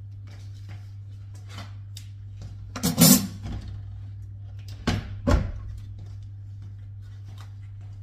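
Indoor handling noises: many light clicks and two loud knocks or clatters, about three and five seconds in, over a steady low hum.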